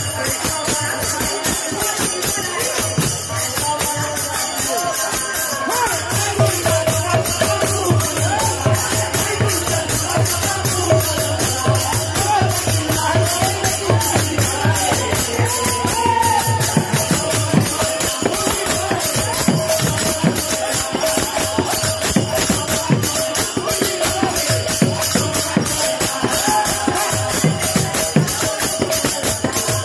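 Kirtan music: two-headed barrel drums played in a fast, driving rhythm with hand cymbals jingling throughout, over a steady held note, with voices singing through the middle part.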